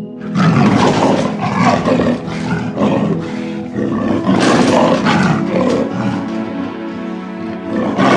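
Leopard roaring, several rough calls a second or so apart, over background music.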